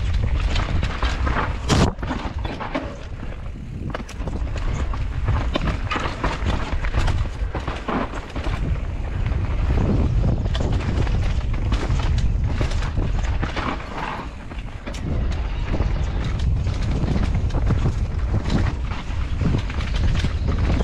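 Mountain bike descending a rough dirt and rock trail, heard from a GoPro on the rider: a steady rumble of wind buffeting the microphone and tyres rolling, broken by frequent knocks and clatter as the bike hits bumps, the sharpest about two seconds in.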